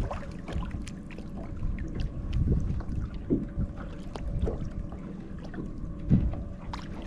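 Wind on the microphone and water moving around a small boat, a steady low rumble with scattered light knocks and clicks, two of them a little louder about three and six seconds in.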